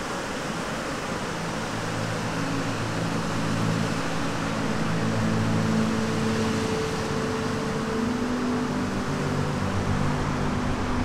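Rough surf breaking and washing on a beach: a steady, even rush of waves, joined about two seconds in by a low steady hum of sustained tones.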